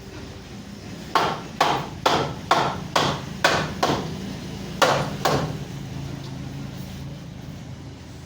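Hammer blows on wood: seven strikes at about two a second, then two more after a short pause.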